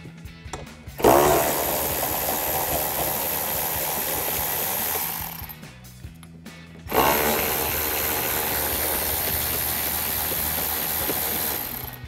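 Milwaukee cordless electric ratchet with a 7 mm socket spinning out door-panel bolts. It runs twice, each run lasting about four to five seconds and starting with a quick wind-up of the motor.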